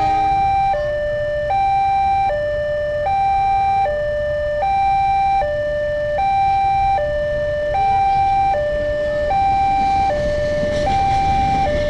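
Railway level crossing warning siren sounding its two-tone alarm, alternating between a higher and a lower pitch about every 0.8 s, the signal that a train is approaching. Near the end the low rumble of an approaching diesel locomotive builds underneath.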